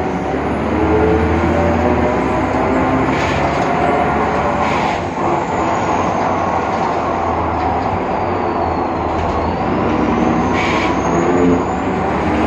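Cabin sound of a BredaMenariniBus Avancity Plus city bus under way: its Deutz diesel rumbles low, and over it runs a thin, high whine that falls in pitch toward the middle and rises again near the end, with a few short rattles. The whine is the strange noise that the uploader traces to the bus's differential.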